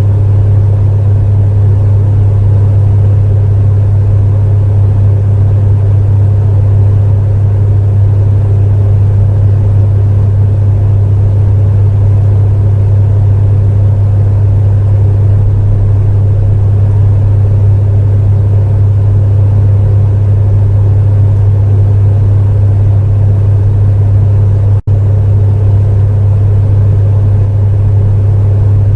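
Space heater running with a steady loud drone, a strong low hum under a rushing fan-like noise. About 25 seconds in, the sound cuts out for an instant.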